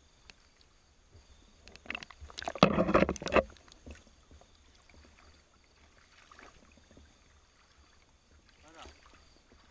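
Water splashing and bubbling around a snorkelling spearfisher, a loud burst of dense crackling splashes about two seconds in that lasts a little over a second; otherwise faint water noise.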